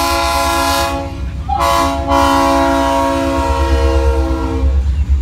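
Florida East Coast locomotive 433's air horn sounding a multi-note chord for a grade crossing: a long blast ending about a second in, a short blast, then a long blast that stops near the end. It is heard from inside a car, with a low engine rumble underneath.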